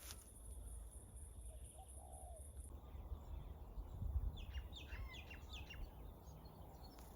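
Bird chirping: a quick run of short chirps about four seconds in, over a low steady rumble.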